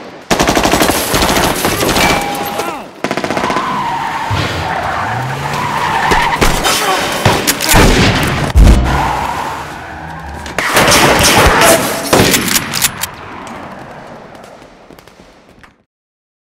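Action-film soundtrack of a shootout: rapid volleys of gunfire in waves, with car noise in between, cutting off to silence just before the end.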